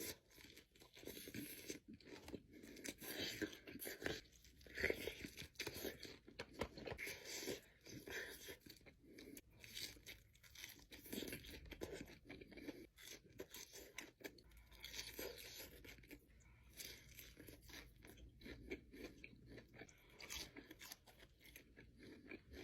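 Close-miked eating: irregular crunching bites and chewing of restaurant food, typical mukbang eating sounds.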